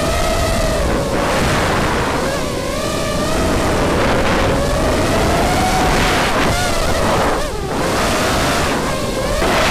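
Small FPV racing quadcopter's brushless motors and propellers, heard from a camera mounted on the craft: a buzzing whine whose pitch rises and falls with the throttle, over heavy wind and propeller rush. The whine drops away briefly about seven and a half seconds in, as the throttle is cut.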